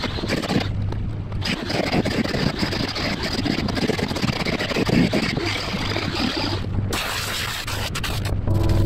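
Electric die grinder (Bitec SGM 906 V-OS) with a cutting bit grinding and trimming fibreglass, a rough, uneven scraping whine. Near the end the grinding stops and a steadier hum with a few level tones is left.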